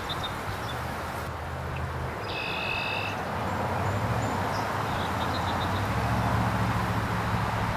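Steady outdoor background noise with a low hum throughout, and a brief high chirp about two and a half seconds in, with a few faint chirps around five seconds.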